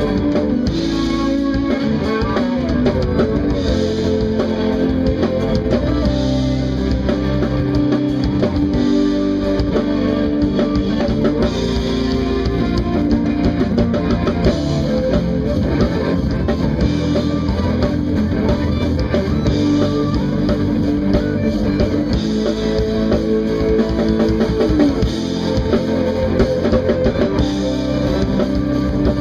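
Instrumental jazz-fusion band playing live: electric guitar with electric bass, keyboards and drum kit, steady and full throughout.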